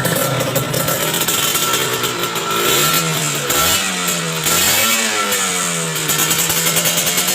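Sports motorcycle with an aftermarket racing exhaust idling, blipped twice in the middle so the note rises and falls before settling back to idle.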